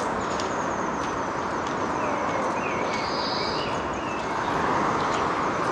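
Outdoor ambience: a steady rush of distant traffic that swells a little near the end, with a few short bird chirps about halfway through.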